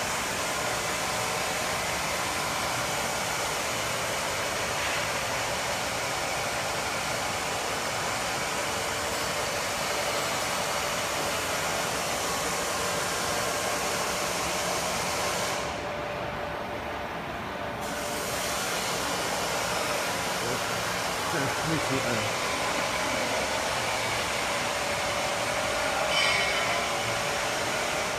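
HCH1550 duct seam closing machine running: a steady whirring hiss with a faint hum. About halfway the high part of the hiss drops away for a couple of seconds, then comes back, and there is a short clatter near the end.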